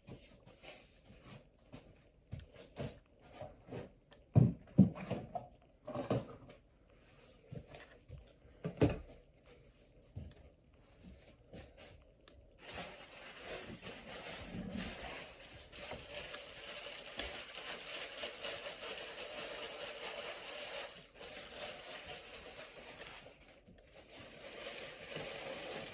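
Small taps, clicks and scrapes of metal tweezers picking at adhesive on a phone's back glass, a few sharper knocks among them. About halfway through a steady hiss sets in and runs on.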